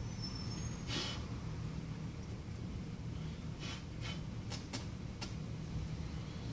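Steady low hum of room noise with a brief rustle about a second in and a few small sharp clicks a little after the middle, light handling noise from the repair work on the bench.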